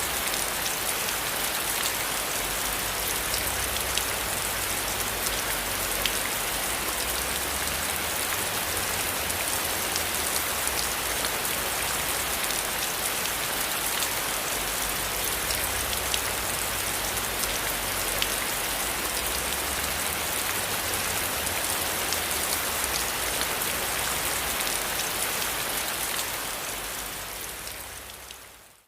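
Steady rain with many individual drops pattering on a surface, fading out over the last couple of seconds.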